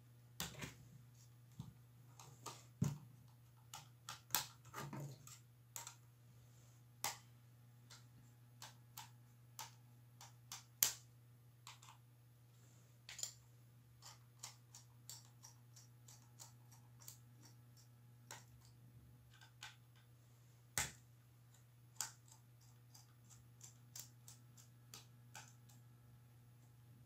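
Irregular small clicks and taps of a screwdriver and loose parts against a laptop's opened plastic case and internal parts as it is taken apart, over a faint steady low hum.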